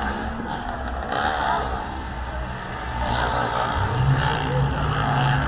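Street traffic: a car engine running close by, its low hum swelling about four seconds in.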